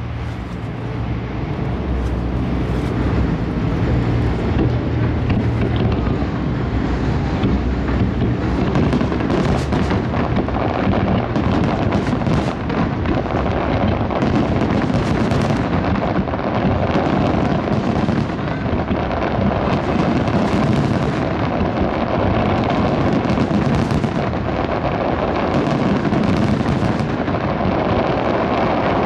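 Fireworks display going off in quick succession: a dense, continuous barrage of bursts and crackles with no breaks.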